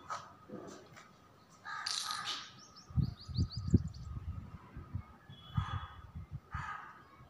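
A bird giving short, harsh calls, about two seconds in and twice more near the end, with a run of low thumps and rumbles in between.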